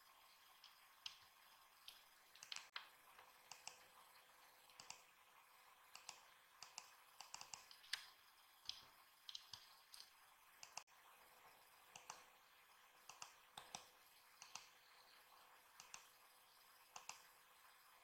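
Faint, irregular clicks of a computer mouse and keyboard, some coming in quick runs, over a faint steady hum.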